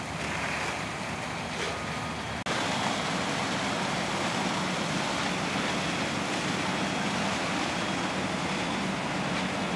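Steady rushing of hose and ladder-pipe water streams spraying onto a burning house, over the low drone of fire engines running their pumps. The sound breaks off abruptly about two and a half seconds in and comes back louder.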